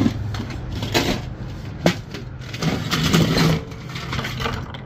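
Small plastic action figures and parts tipped out of a metal snack tin onto a plastic truck bed liner. A sharp knock comes first, then clattering and rattling in a few bursts, the longest about three seconds in, over a low steady hum.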